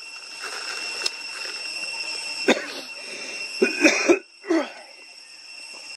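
A few short, harsh coughs in quick succession a little past the middle, over a steady high-pitched insect drone, with a single sharp click just before them.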